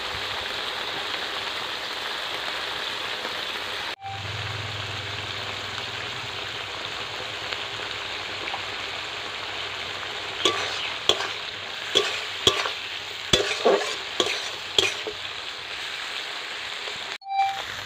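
Prawns sizzling steadily in hot oil in a kadai. From about ten seconds in, a metal spatula stirs them, scraping and clinking against the pan in a run of sharp strokes.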